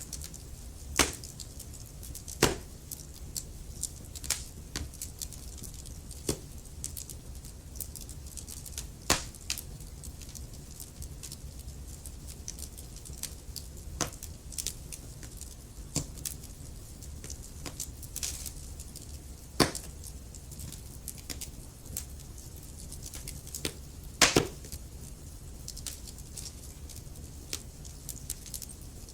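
Wood fire crackling: burning logs popping and snapping at irregular intervals over a low steady rumble, with a few louder pops, the loudest near the end.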